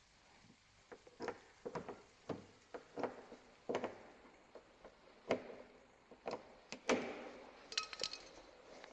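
Irregular clicks and knocks, about fifteen of them, from car door lock parts and tools being handled and worked. A short run of ringing metallic clicks like jangling keys comes near the end.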